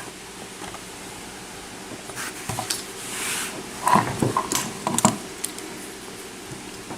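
Small metal clicks and taps, with a brief scrape about three seconds in, as a picked-open padlock is handled and taken apart.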